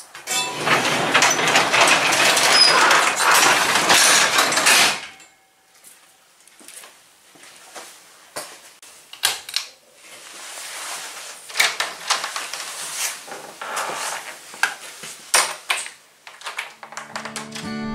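Overhead sectional garage door pulled down by hand, rolling shut with a loud steady rattle for about five seconds. Scattered knocks and clicks follow.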